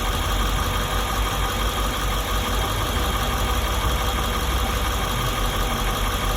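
International 7.3 V8 turbodiesel idling steadily while it warms up.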